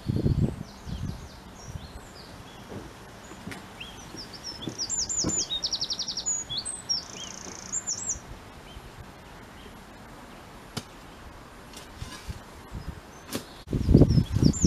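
A small songbird sings quick trilled, chirping phrases, the same phrase twice. Short low rustling thumps come at the start and again near the end.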